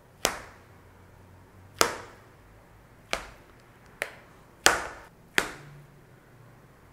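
Metal spatula blade pushed down through raw kibbeh meat, knocking on the bottom of a metal baking pan. There are six sharp taps at irregular intervals, each cut making one knock.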